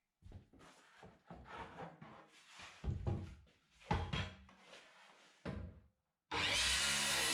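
Wood being worked by hand: a run of uneven scraping and rubbing strokes with a few louder knocks. About six seconds in, a power tool starts and runs steadily.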